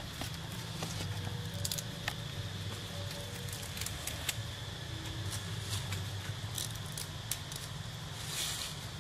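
Outdoor ambience with a steady high-pitched drone and a low rumble, scattered sharp clicks and crackles, and a short rustling hiss near the end.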